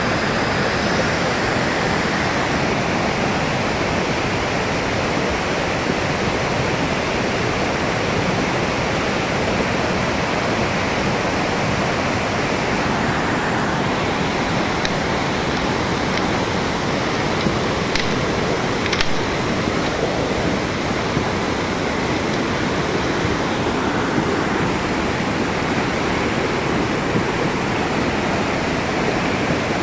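Muddy river in full flood, its fast brown water rushing and churning in a steady, unbroken noise, swollen and carrying washed-in landslide soil.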